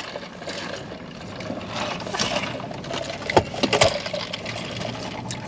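People eating in a car: chewing and mouth sounds, with rustling of a paper food box and a few short louder smacks about two and three and a half seconds in.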